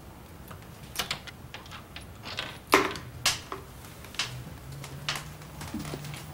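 Scattered sharp knocks and clicks at uneven intervals, the strongest about three seconds in, with a faint low hum joining near the end.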